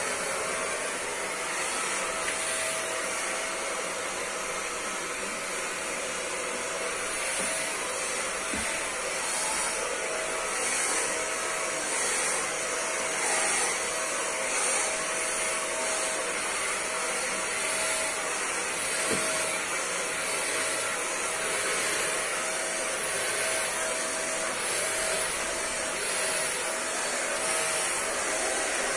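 Electric vacuum cleaner running steadily, a constant whining tone over its rushing air, with small swells in loudness as it is worked over the floor.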